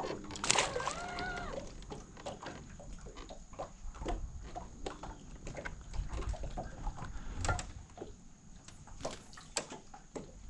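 A crappie tossed back into the lake splashes about half a second in, followed by scattered light clicks and knocks of tackle and handling on the boat.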